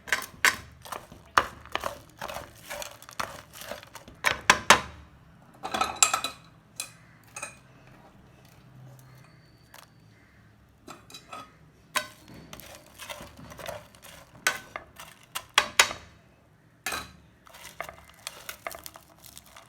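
Metal spoon clinking and knocking against a pan while stirring warm jaggery syrup: irregular strokes, dying down to a quieter stretch around the middle before picking up again.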